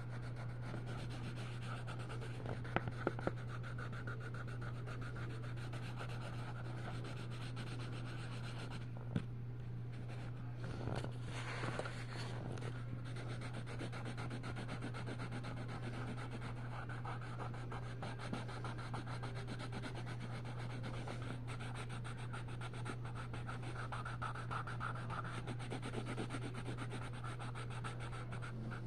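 Colored pencil rubbing and scratching across a coloring-book page as an area is shaded in, over a steady low hum. A few sharp clicks stand out about three seconds in and once near nine seconds.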